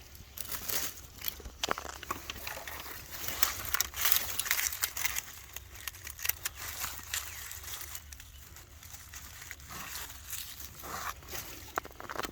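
Irregular rustling, scraping and crackling of dirt, roots and dry leaf litter being handled close up, with many small clicks and snaps, busiest a few seconds in.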